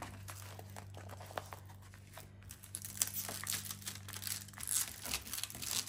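Crinkling and rustling of a plastic-covered diamond painting canvas being handled and smoothed flat by hand.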